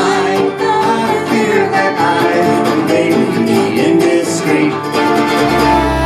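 Ukulele and acoustic guitar strummed together under singing, a live acoustic duo. Near the end a deep, steady bass note comes in.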